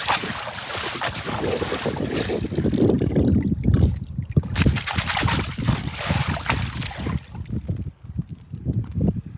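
Gusty wind buffeting the microphone, a rough, irregular rumble with crackling that eases about seven seconds in.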